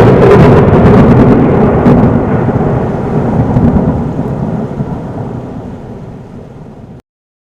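A loud, thunder-like rumbling crash that starts suddenly, then fades over about seven seconds before cutting off abruptly.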